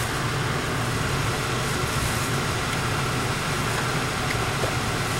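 Steady hum inside a parked car's cabin: the engine idling with the ventilation fan blowing, even and unchanging.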